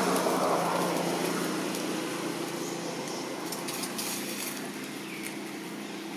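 A motor engine running steadily in the background, with a wash of passing noise that is loudest at the start and fades over the first couple of seconds.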